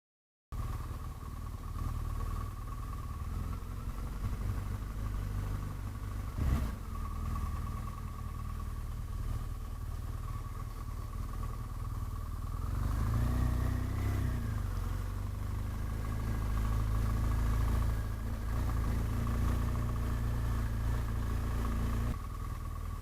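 BMW R1200GS boxer-twin motorcycle engine running while riding. There is one sharp knock about six seconds in, and the revs rise briefly and fall back around the middle.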